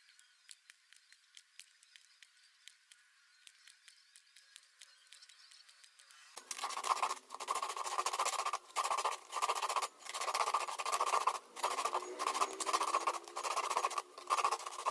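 Faint light ticking, then about six seconds in, a run of loud rasping scraping strokes with short breaks between them, each stroke lasting about half a second to a second, as a hand tool works material.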